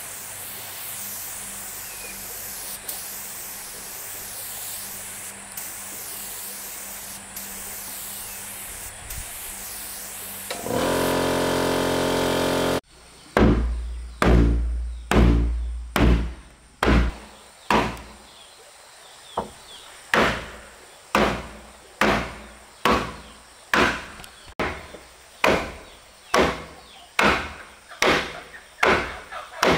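A steady hiss, then a loud steady hum for about two seconds that cuts off suddenly. A long run of evenly spaced knocks follows, a little more than one a second, like blows struck on wood.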